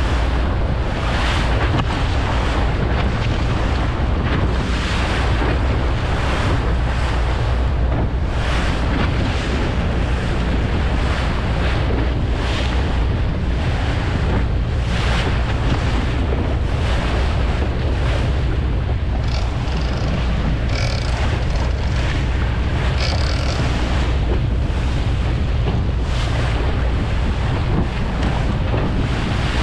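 Boat engine running at a steady low hum while trolling, with wind buffeting the microphone and water rushing past the hull in recurring surges.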